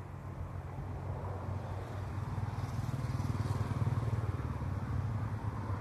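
An engine running steadily with a low hum, growing louder toward the middle and easing a little near the end.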